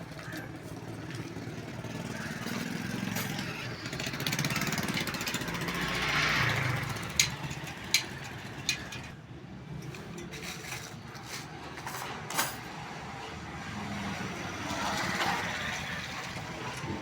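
Motor engine running with a low steady hum, swelling twice as if passing by, with a few sharp metallic clicks about seven to twelve seconds in.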